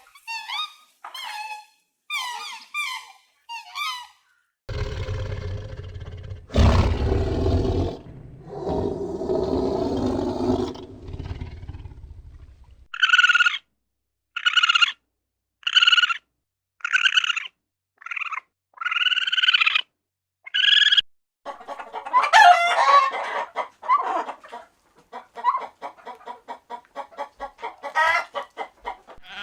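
A run of different farm-animal calls one after another. First come short high calls, then a long deep call, then about eight evenly spaced squawks a second apart, and finally a rapid, dense chatter of bird calls.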